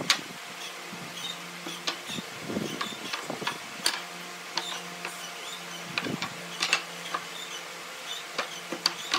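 Pine boards being handled and set down on a wooden workbench: irregular light knocks and clicks of wood on wood, over a faint steady hum.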